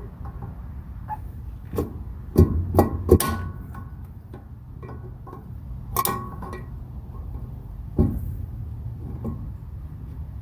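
Irregular metallic clinks and knocks of hand tools such as pliers and vise grips against a combine's sprocket bearing and shaft, over a steady low hum. A quick cluster of sharp, ringing clinks comes a few seconds in, and single knocks follow later.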